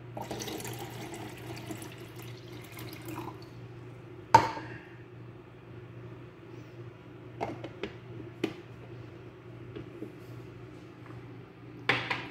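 Water poured from a jug into a Nikai capsule coffee machine's water tank for about three seconds, followed by a sharp clunk about four seconds in and a few lighter clicks and knocks, with another cluster of knocks near the end. A low steady hum sits underneath.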